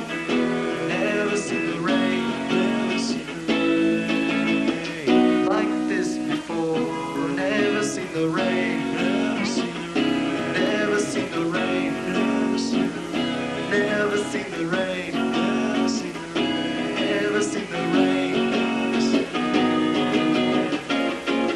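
A small band playing live, with guitar playing to the fore and a regular light percussive accent.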